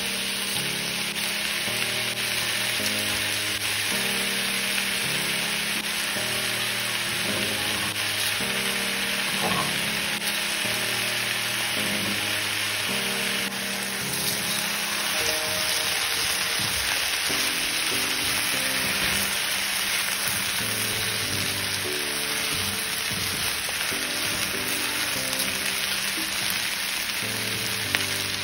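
Onion, carrot and pineapple sizzling in hot oil in a wok, a steady frying hiss that carries on once rice and chicken are stirred in about halfway through. Background music with slowly changing notes plays alongside.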